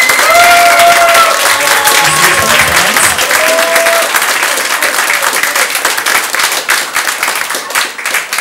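A crowd applauding loudly, with drawn-out cheering whoops over the clapping in the first few seconds.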